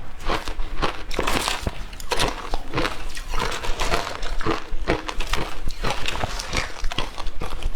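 Close-up chewing and crunching of shaved ice, a dense run of irregular crackly crunches.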